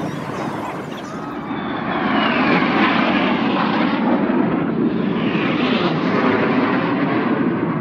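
Jet aircraft passing low overhead in a display formation: a loud rushing jet noise that swells about two seconds in, with whining tones sliding in pitch as the jets go by.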